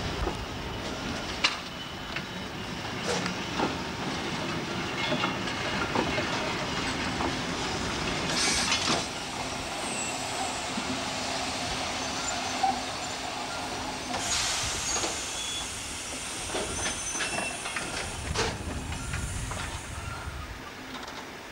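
Small electric locomotive and van rolling slowly past at low speed: scattered sharp knocks from the wheels and running gear over the track, under a steady rumble. Two loud bursts of hiss come about eight and fourteen seconds in.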